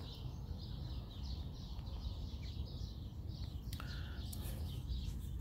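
Small birds chirping in quick, repeated short notes, over a steady low rumble.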